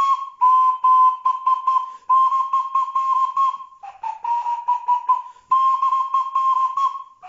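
Homemade flute made of three CDs and a cardboard toilet-roll tube, blown in short phrases of quick breathy pulses on one high whistling pitch, imitating the purring call of a turtle dove. About five phrases with short gaps between them; the fourth, about four seconds in, sits a little lower.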